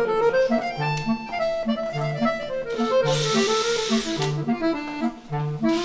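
Background music: a bright melody over a bass line that repeats about every 0.6 s. About three seconds in there is a hissing burst lasting a little over a second.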